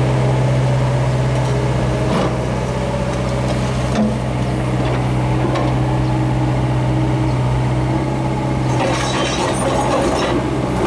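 Hyundai R55 mini excavator's diesel engine running at a steady speed, with a couple of light knocks and a rattling clatter near the end.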